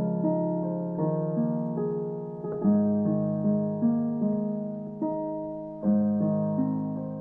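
Background music: soft piano (electric piano) playing slow notes that fade after each strike.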